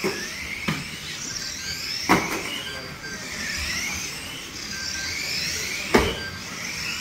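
Several radio-controlled stock cars racing on a carpet oval, their motors whining up and down in overlapping glides as they speed along the straights and ease off for the bends. Three sharp knocks of contact come about a second in, about two seconds in and near the end.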